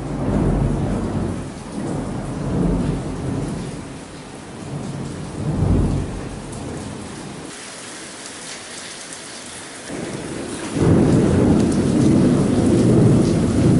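Thunderstorm: rolling thunder rumbling in several swells over steady rain, with a longer, louder roll of thunder beginning about eleven seconds in.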